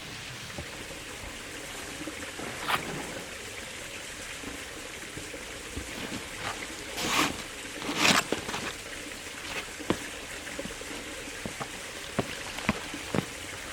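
Creek water trickling steadily over rock, with the scattered scuffs and clicks of footsteps on rock and leaf litter. The louder scuffs come about 3, 7 and 8 seconds in.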